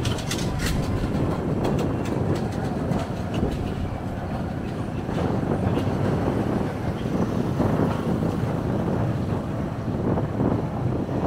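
Steady low rumble of a moving vehicle and its road noise, with a few sharp clicks in the first two seconds.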